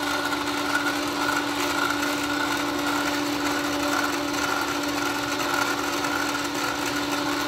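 Small electric motor of a toy spin-art painting wheel running steadily, a constant whirring hum as the turntable spins.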